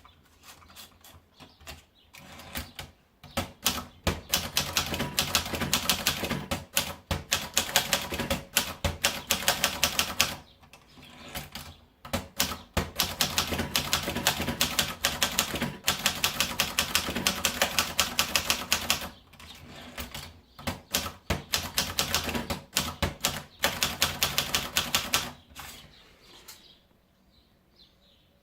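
Royal Royalite 120 portable manual typewriter being typed on: rapid key strikes in three long runs with short pauses between them, stopping near the end.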